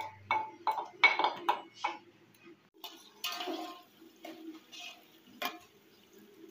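A quick run of sharp clinks and knocks of kitchenware, then wet stirring and sloshing as a metal spoon is worked through sliced onions and liquid in a large aluminium cooking pot. One more sharp clink comes near the end.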